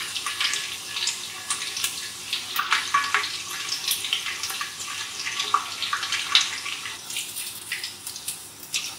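Soya chunks deep-frying in hot oil in a kadai: a steady sizzle thick with small crackles and pops.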